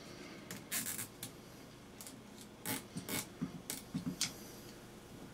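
Thin nylon mini cable tie being threaded and pulled tight by hand: a series of short scratchy rasps and clicks, between about one and four seconds in.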